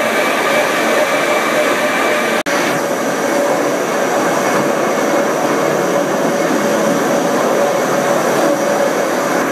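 Pilatus Railway electric rack railcar running on the cog rack: a steady loud rumble and hiss with a whine from its drive. It breaks off for an instant about two and a half seconds in, after which the higher whine is gone.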